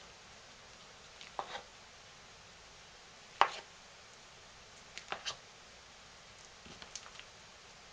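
A handful of sharp taps and knocks from a spoon working soap against the mold and crock, in four short clusters, the loudest about three and a half seconds in.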